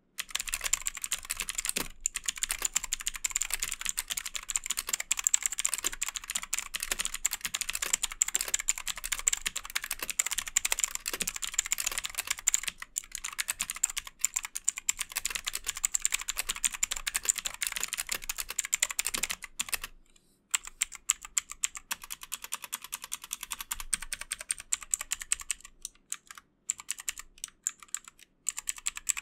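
Fast typing on a Leaven K550 mechanical keyboard with clicky, tactile blue switches: a dense stream of sharp clicks, with a short pause about 20 seconds in and sparser keystrokes near the end.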